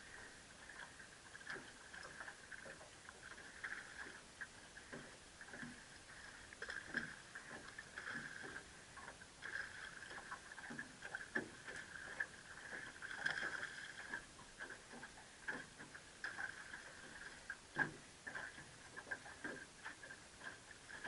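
Fishing reel cranked in short, irregular spurts as a topwater lure is worked back: a faint ticking and whirring with scattered small clicks.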